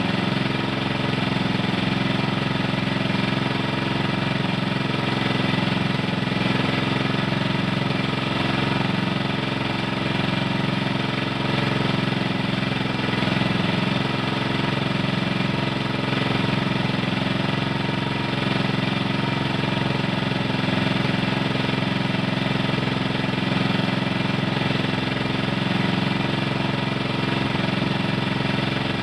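A small engine aboard a motorized outrigger fishing boat running steadily at one constant speed.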